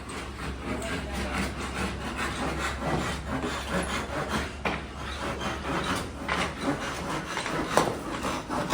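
Irregular rasping and rubbing strokes from hand work during an air-conditioner piping installation, with a few sharp knocks near the end.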